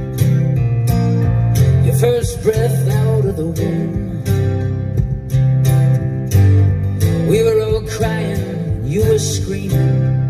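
A song played through the car's aftermarket audio system: acoustic guitar and bass, with a sung vocal line a couple of seconds in and again near the end.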